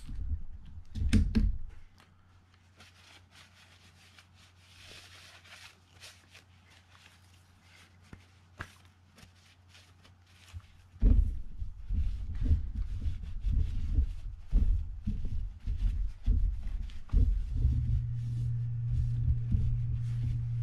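Bench-work handling noise on a conventional fishing reel being reassembled: a few knocks at first, then faint scattered clicks of a screwdriver and screws in the reel frame. From about eleven seconds there are louder, closer knocks and rubbing as the reel is handled and wiped with a paper towel.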